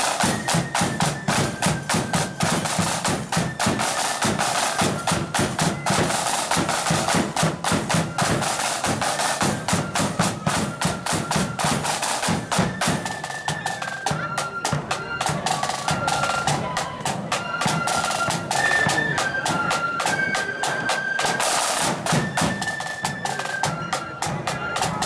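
Marching band's snare drums and bass drum playing a fast, driving beat. About halfway through, a high melody of held, stepped notes comes through more clearly above the drums.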